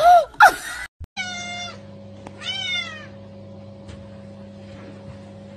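Two loud, short cries at the very start, then, after a brief break, a domestic cat meows twice, each meow falling in pitch, over a steady low hum.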